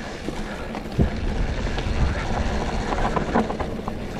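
Mountain bike rolling down a dirt singletrack: a steady rumble of tyres and rattle of the bike, with wind on the microphone and a sharp knock about a second in.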